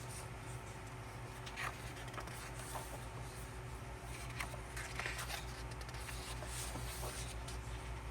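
Faint handling of a paper photo book: pages turning and rustling, with a few light ticks, over a steady low hum.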